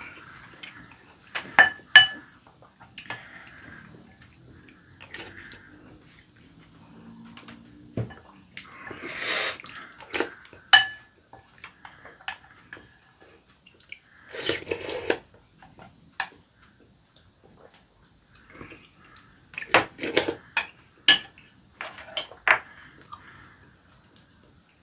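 A spoon clinks and scrapes against a glass bowl of chicken rice porridge, and some clinks ring briefly. Between them come several wet slurping and eating sounds, the loudest about 9, 15 and 20 seconds in.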